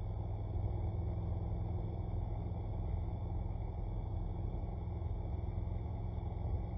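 Honda NC750X motorcycle riding at a steady pace: its parallel-twin engine and road rumble make a steady low drone.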